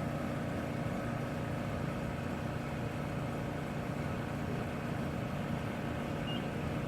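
Steady low machinery hum with several fixed tones, unchanging throughout.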